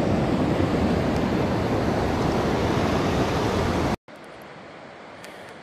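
Loud, steady rush of fast-flowing river water close by; about four seconds in it cuts off abruptly to a much quieter, steady hiss.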